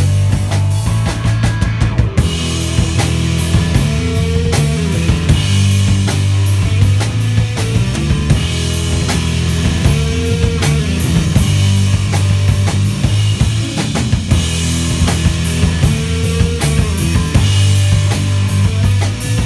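Live stoner/space rock band playing a repeating riff over a drum kit, with a heavy bass line.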